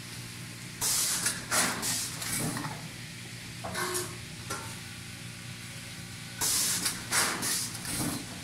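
Dolzan D150 vertical form-fill-seal packaging machine running: a steady low hum with two clusters of sharp hissing bursts about five and a half seconds apart, one per machine cycle.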